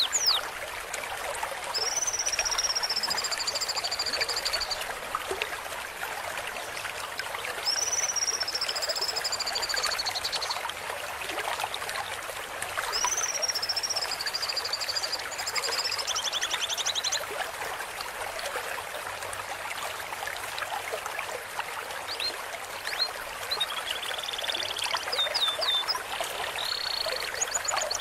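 Steady trickling stream water with a songbird whistling over it. It sings three long slurred phrases, each arching up and then falling slightly, a few seconds apart. Near the end comes a quick run of short chattering notes.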